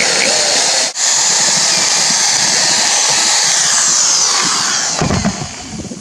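Cordless drill with a spade bit boring into a wooden deck board at full speed. It breaks off briefly about a second in and stops about five seconds in.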